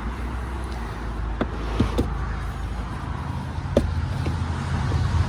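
Steady low rumble of a car or nearby traffic, with a few light clicks and knocks, twice in quick succession about two seconds in and once more near the four-second mark.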